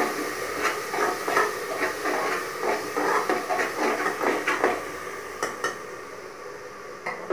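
Slotted spatula scraping and tapping against the inside of an aluminium pressure cooker while masala is stirred and fried in oil. The strokes come about three a second for roughly five seconds, then stop, with a couple of stray clicks later.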